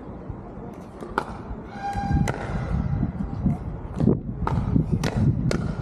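A pickleball rally: a series of sharp pocks from paddles hitting the hard plastic ball and the ball bouncing on the court, about six in all, coming faster toward the end.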